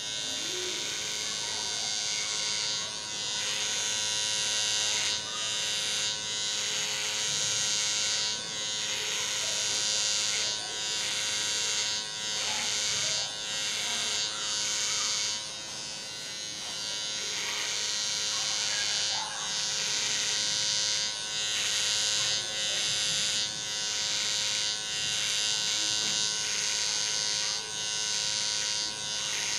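Electric hair trimmer running with no guard, cutting hair: a steady motor buzz with a strong high whir. The sound dips briefly every second or two as the blade is worked through the hair in short strokes to blend a fade.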